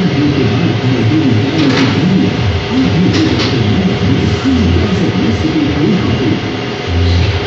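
MLS-5002-HD two-needle industrial bag sewing machine running steadily with a continuous mechanical hum, with music playing over it.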